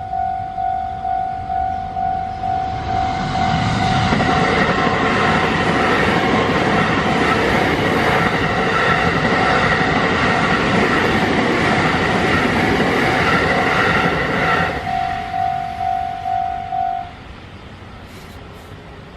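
Japanese railway level-crossing warning bell dinging steadily several times a second while an electric train passes over the crossing. The train's rumble comes in about three seconds in and fades out at about fifteen seconds. The bell stops soon after.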